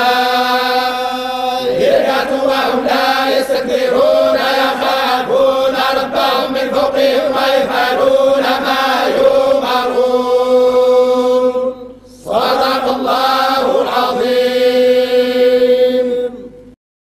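Group of men chanting the Quran in unison in the Moroccan collective hizb style, many voices holding long notes over a steady drone. They break off briefly about twelve seconds in, then chant the closing formula "Sadaqa Allahu al-Azim" and stop abruptly near the end.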